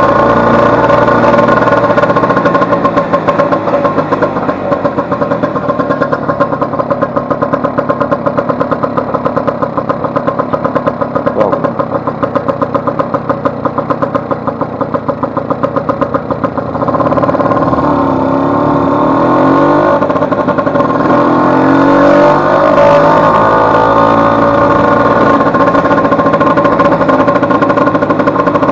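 Vespa 150's two-stroke single-cylinder engine running while the scooter is ridden. Through the middle it runs quieter with a regular pulsing. From about two-thirds in it gets louder and its pitch rises and falls as the rider opens the throttle.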